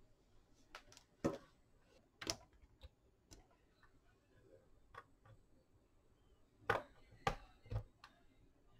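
Scattered light clicks and taps of multimeter probe tips and test leads handled against the plastic terminal block of a 56 V lithium-ion battery pack. The sharpest taps come about a second in and two seconds in, with a cluster of three near the end.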